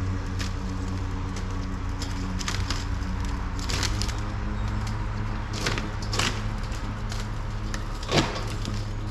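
STIHL RMA 443 C battery lawn mower running with a steady hum as it cuts grass, with several short sharp sounds over it, the loudest about eight seconds in.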